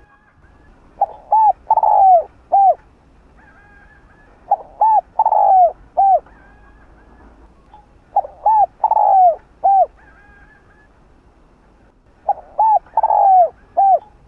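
Spotted dove cooing: four repeated song phrases about three and a half seconds apart, each of two short coos, a longer, louder coo that curves downward, and a short closing coo. Faint higher chirps sound between the phrases.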